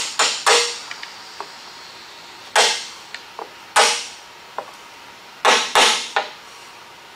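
Sharp taps of a hand tool on a 1967 Pontiac GTO's metal drip rail molding as it is worked off the rail's lip. Three quick taps come at the start, then single taps follow at uneven gaps of about a second.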